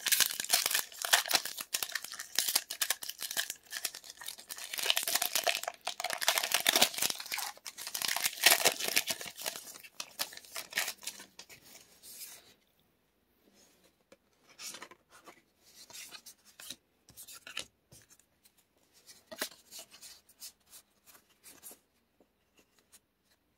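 A trading-card booster pack wrapper being torn open and crinkled for about twelve seconds, then softer, scattered rustles and clicks as the cards are handled.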